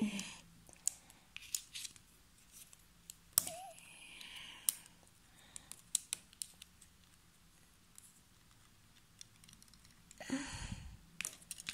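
Hard plastic Playmobil toy parts clicking and tapping against each other as they are handled and pushed together, in scattered single clicks with the loudest a few seconds in. A short burst of handling noise comes near the end.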